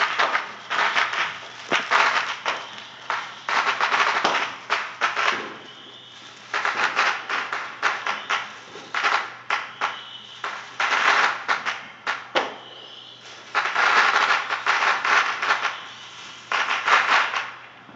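Fireworks and firecrackers going off in dense bursts of rapid crackling pops, several clusters each lasting a second or two with short lulls between, and a faint high whistle twice.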